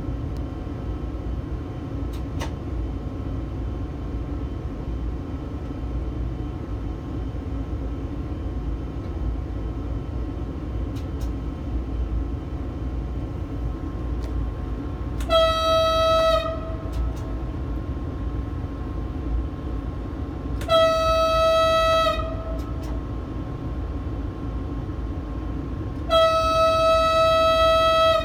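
Train horn, the small weak one because the larger horn is frozen solid with snow and ice, sounding three steady single-note blasts about five seconds apart, the last one the longest. Underneath is the steady low rumble of the train's cab.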